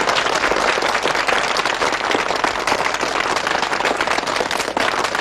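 A studio audience applauding: many hands clapping in a dense, steady stream.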